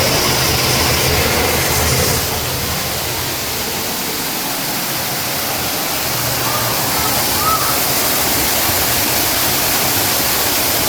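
Steady rush of falling water, as from a waterfall, easing slightly about two seconds in.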